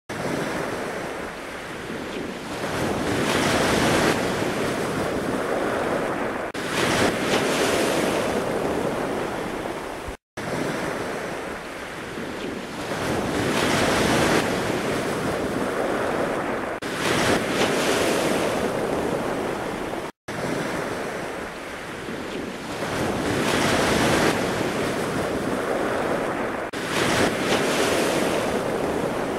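Ocean surf: waves washing in and drawing back, swelling and easing a couple of times every ten seconds. The same stretch repeats as a loop, with a brief dropout between repeats.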